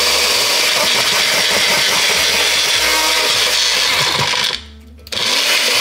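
Personal bullet-style blender running, its motor churning a smoothie of milk, fruit and yogurt; it stops abruptly a little over four seconds in and starts again half a second later as the cup is pressed down once more.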